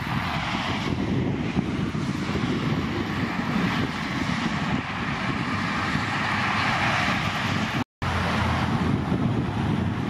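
Wind buffeting the microphone with a low gusty rumble, under a steady hiss of road traffic that swells and fades as vehicles pass. The sound cuts out completely for a moment about two seconds before the end.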